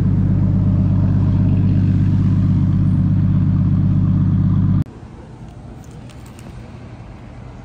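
Nissan 240SX's swapped 1JZ inline-six engine idling steadily, heard loud and close to the car. The sound cuts off abruptly nearly five seconds in, leaving a much quieter low noise.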